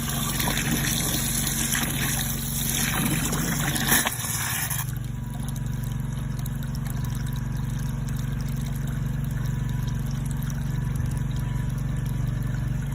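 Water splashing from a high-pressure drain-cleaning jet, with scattered knocks, cutting off abruptly about five seconds in; after that the washer's pump unit keeps up a steady low hum.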